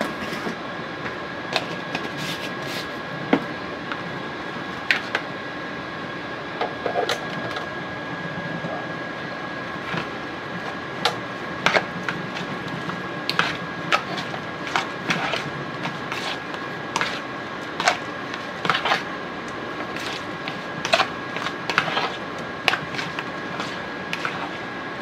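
A spoon clicking and scraping against a ceramic bowl at irregular moments as raw shrimp are mixed with seasonings, over a steady high-pitched hum.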